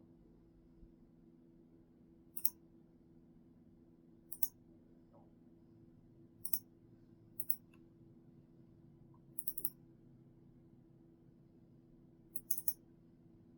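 Computer pointer buttons clicked six times over about thirteen seconds, each a quick cluster of two or three sharp clicks, as the laptop's software is navigated. A faint steady low hum sits underneath.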